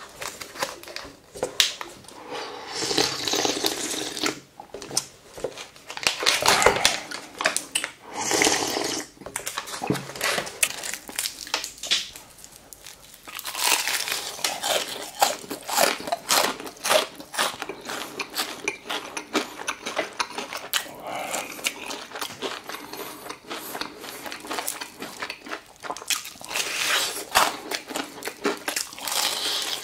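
Crinkling and tearing of crisp fried chicken being handled and pulled apart, followed from about 13 seconds in by crunchy bites into the fried coating and close-up chewing.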